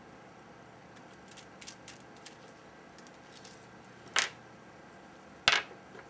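Small sharp metal clicks and taps from a soldering iron tip being removed and swapped: a string of faint ticks, then two louder clicks, about four and five and a half seconds in.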